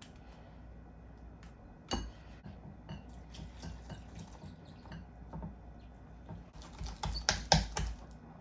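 Glassware and a wire whisk clinking against a glass mixing bowl while water is added to teff flour batter: one sharp clink about two seconds in, scattered light taps, then a quick run of clinks and taps near the end.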